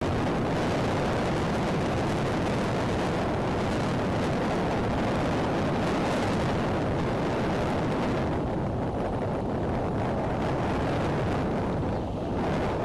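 Strong wind blowing across an outdoor nest camera's microphone: a loud, steady rushing noise, heaviest in the low end. The higher hiss thins out after about eight seconds, and the level drops near the end.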